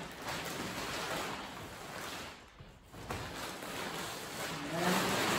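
Plastic poly tarp rustling and crinkling as it is handled and a tent pole is fed through a taped loop in it, dipping briefly a little after halfway.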